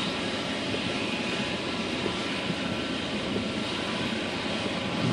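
A stopped car heard from inside its cabin: a steady low rumble with an even rushing noise over it.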